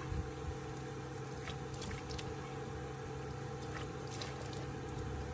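Running tap water splashing as a man scoops it in his hands and washes his face, with irregular splashes, over a steady low hum.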